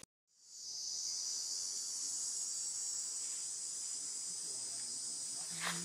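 A steady, high-pitched drone of insects chirring in the trees, beginning about half a second in and holding an even level throughout.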